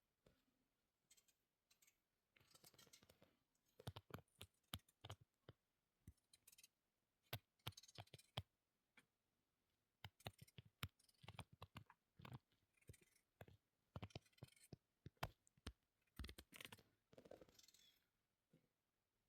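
Faint, irregular clicks and short rustling, scraping handling noises, a few clicks a second in clusters.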